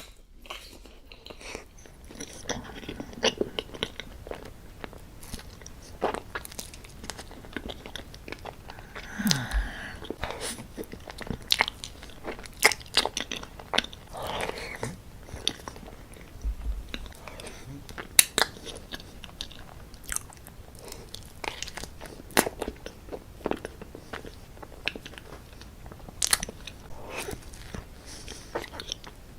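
A person biting and chewing profiteroles close to the microphone, with irregular mouth clicks and smacks. A short falling vocal sound comes about nine seconds in.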